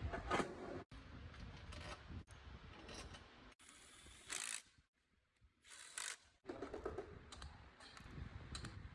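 Irregular light clicks and knocks, broken by a brief quiet gap about five seconds in.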